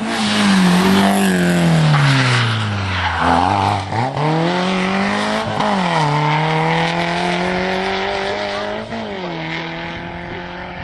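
Rally car engine passing close at full volume. Its pitch drops steeply as it brakes and slows, then climbs as it accelerates away. An upshift near the end drops the revs.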